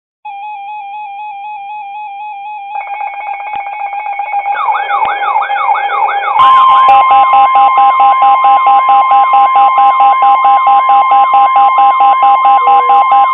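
Several NOAA Weather Radio receivers sounding their electronic alerts at once for a snow squall warning. Warbling alarm tones start just after the beginning and more layers join: rapid beeping, then a rising-and-falling siren-like whoop. About six and a half seconds in, the steady 1050 Hz Weather Radio alert tone comes in over fast pulsing beeps and the sound gets louder.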